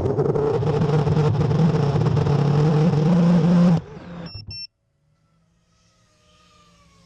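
5-inch FPV racing quadcopter's motors whirring loudly with the drone on the ground, then cutting off abruptly after about four seconds. Short two-tone electronic beeps sound as the whirring starts and again just after it stops.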